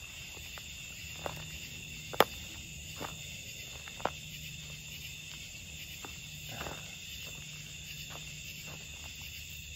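Night insect chorus, a steady high-pitched buzz of crickets. Over it come footsteps on leaf litter and fallen sticks, with a few sharp cracks, the loudest about two seconds in.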